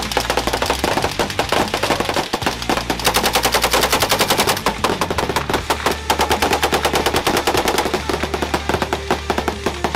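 Mad-minute volley: many rifles and machine guns firing at once along a firing line, the shots overlapping into a dense, unbroken stream of gunfire.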